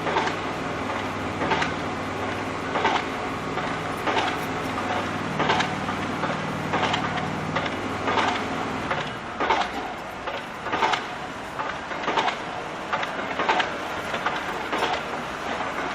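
Rhythmic mechanical clatter, a sharp clack about every second and a third, over a steady low machine hum that drops and changes about nine seconds in.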